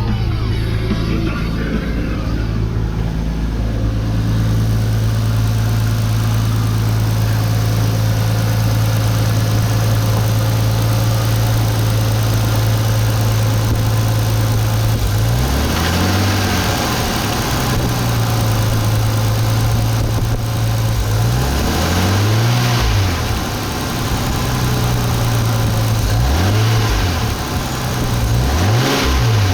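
Nissan RB25DET turbocharged straight-six idling steadily, then blipped several times in the second half, the revs rising and falling quickly each time. The knock in this engine turned out to come from the turbocharger.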